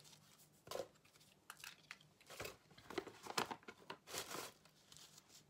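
Packaging being handled, giving several short, irregular rustles.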